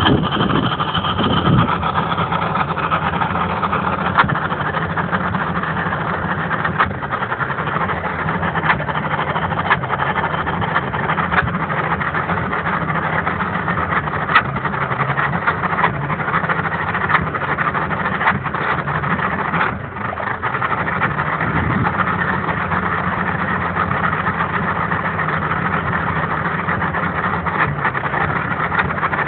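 1996 Mercury 150 Offshore V6 two-stroke outboard idling rough, with sharp sneezes every few seconds and two brief stumbles. The rough idle and sneezing happen whether the weather is warm or cold, and the owner does not know the cause.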